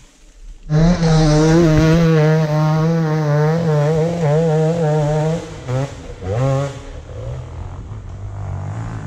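Enduro dirt-bike engine starts under a second in and is held at high revs for about four and a half seconds, its pitch wavering slightly. The revs then fall away, two short throttle blips follow, and it settles to a lower, steady running note.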